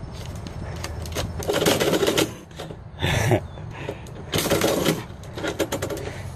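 Metal door mail-slot flap clacking and rattling, with paper rustling, as envelopes are pushed in and a cat shoves them back out through the slot. Irregular clicks throughout, with a few louder rattles.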